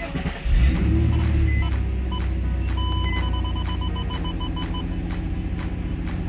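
Nissan 350Z's VQ35DE V6 starting up: it catches about half a second in with a brief flare of revs, then settles into a steady idle. It is run to draw coolant in and purge air after the cooling system has been refilled. A quick run of electronic beeps sounds around the middle.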